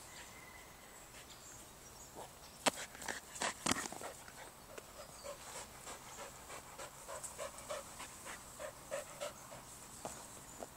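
Border collie panting quickly and rhythmically, about three breaths a second, after running. A few sharp clicks stand out about three seconds in.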